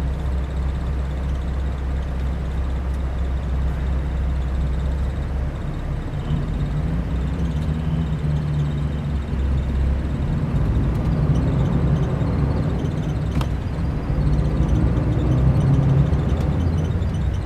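Mercedes-Benz O500 RSD coach's diesel engine running with a steady low drone. About six seconds in its note shifts higher and it grows somewhat louder.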